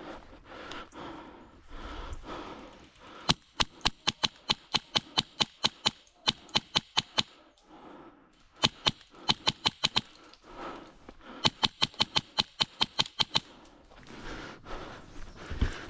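Airsoft replica firing several bursts of rapid sharp shots, about five a second, with short pauses between bursts.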